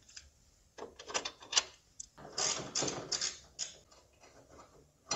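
A hand tool working the T18 Torx bolts of a strut brace loose on a strut tower: several short runs of metallic clicking and scraping, fainter near the end.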